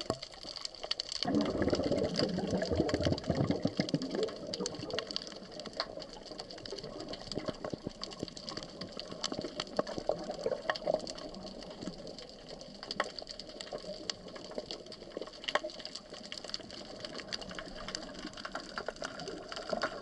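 Underwater sound picked up by a submerged camera while snorkeling: a dense, steady crackle of fine clicks over a water hiss, with a louder rushing burst of water noise from about one to four seconds in.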